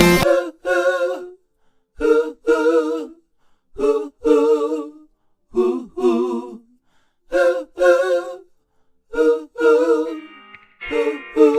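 Unaccompanied singing from a music track: a voice repeats a short two-part sung phrase about every two seconds, seven times, with instrumental backing coming back in about ten seconds in.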